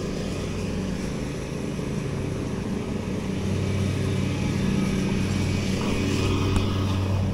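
Petrol lawn mower engine running steadily, getting louder about halfway through.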